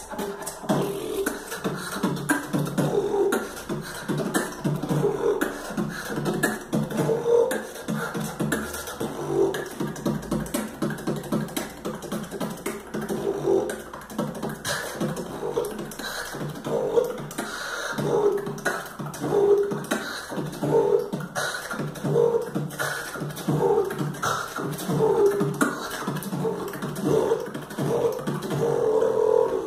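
Vocal beatboxing: a fast, steady run of mouth-made percussive clicks, pops and snares, with short pitched vocal notes woven into the rhythm.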